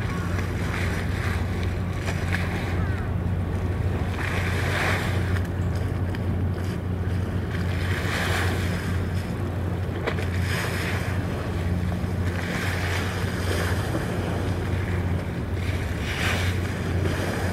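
Steady low drone of ship engines, with water rushing and splashing in surges about every two seconds, and wind on the microphone.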